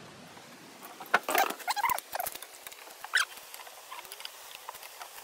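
Metal clicks and clinks of a socket wrench working on a van's wheel nuts: a quick cluster of rattling clicks, then one sharper clink about three seconds in, then a few light ticks.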